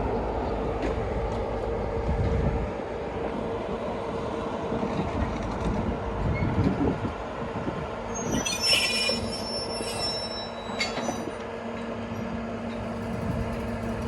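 Train running on rails, with a heavy low rumble that eases after about three seconds and a steady hum underneath. About eight and a half seconds in there is a brief high metallic squeal.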